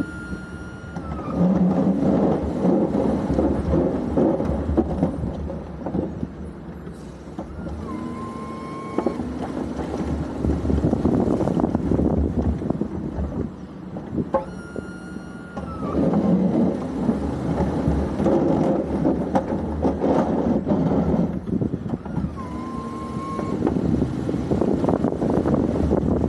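Ford F-350 pickup truck engine running while plowing snow, getting louder in long swells as it works and easing off between them. A brief high whine recurs a few times over it.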